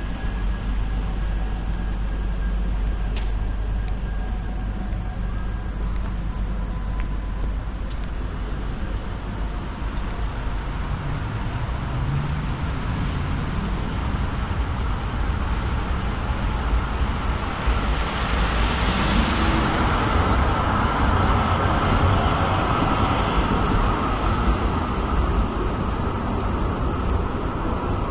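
Road traffic with a heavy vehicle's engine rumbling steadily. A hissing swells and fades about two-thirds of the way through, and a few faint high squeals come early on.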